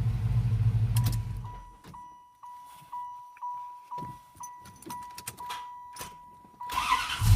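A warm 1994 LT1 V8 idling, then switched off about a second and a half in, followed by a steady dashboard warning chime pulsing about twice a second. Near the end the key is turned to start and the starter clicks, a symptom of the car's intermittent hot-start fault.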